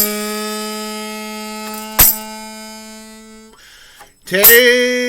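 Harmonica holding a long note that slowly fades, with sharp strikes on a small drum about every two seconds. After a short break a new harmonica note starts loud, sliding up slightly into pitch.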